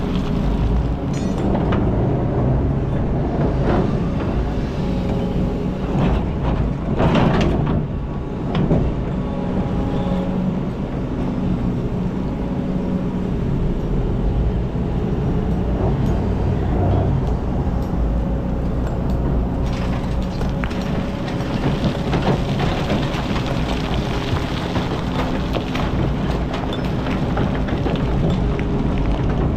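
Kobelco hydraulic excavator's diesel engine running steadily under load, heard from the operator's cab, as the bucket digs and swings. A few sharp knocks and scrapes come about seven to nine seconds in, and sand and rock pour into the dump truck bed.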